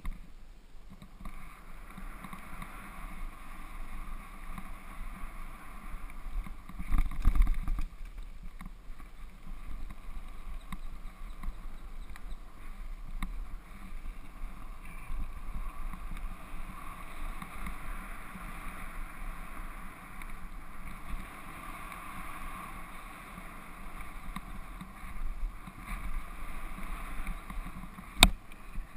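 Specialized Stumpjumper FSR mountain bike rolling fast down a gravel forest trail: a steady rush of tyre noise over loose stones and wind on the camera, with a heavier thump about seven seconds in and a sharp click near the end.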